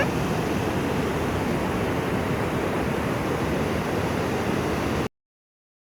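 Waterfall rushing in a steady, dense roar that cuts off suddenly about five seconds in.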